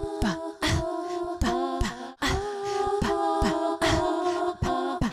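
Short a cappella intro jingle: layered voices holding chords over a beat of low thumps that drop in pitch.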